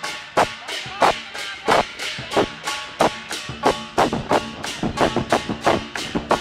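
Lion dance percussion, a drum with clashing cymbals, beating a steady rhythm of about three strikes a second. The metal rings on between beats.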